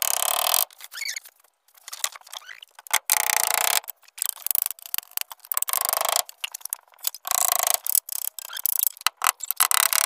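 Repeated scraping strokes of a hand tool working wood, each about half a second to a second long, with short pauses between.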